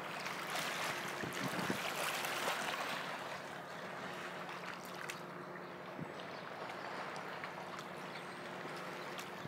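Small waves lapping and trickling among shoreline rocks: a steady wash of water with small splashes, a little louder in the first few seconds.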